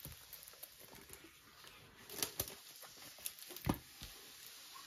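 Faint rustling, with a few soft taps and crackles, from a plastic-covered diamond painting canvas being handled and shifted.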